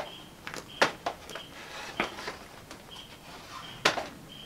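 Knocks and bumps of a wooden lumber frame being handled and turned over, with three sharp knocks about a second apart and the loudest near the end.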